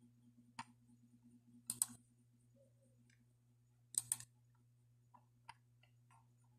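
A few sharp clicks: a single one, then two close double clicks a little over two seconds apart, then a weaker one, over a faint steady electrical hum.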